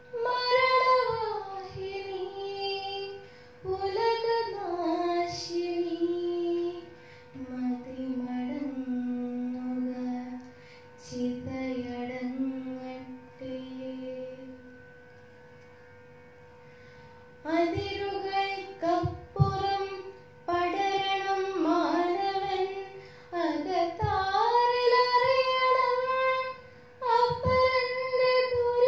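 A girl singing a Malayalam poem solo into a microphone in the melodic kavitha parayanam style, with long held, gliding notes. She pauses for about two seconds a little past the middle, then goes on.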